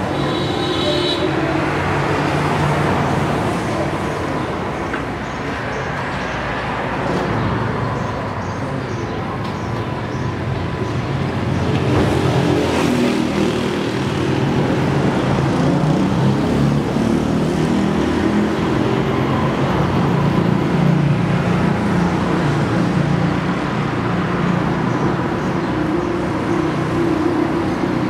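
Road traffic noise, vehicle engines running and passing, steady with the engine hum growing stronger about halfway through.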